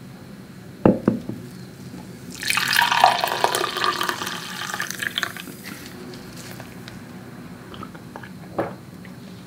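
Coffee poured in a stream into a glass mug, starting a couple of seconds in and trailing off after about three seconds. Two sharp knocks come about a second in, and another short one near the end.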